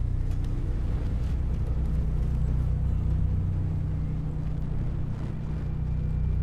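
Low, steady rumbling drone with sustained deep tones and nothing sharper above it, part of an animated film's soundtrack.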